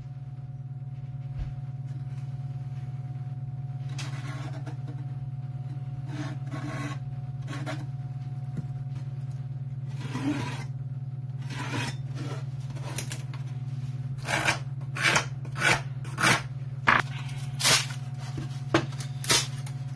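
Hand scraping or sanding strokes on a wooden panel: a few scattered strokes at first, then a regular run of short strokes about one every three-quarters of a second in the last third. A steady low hum runs underneath throughout.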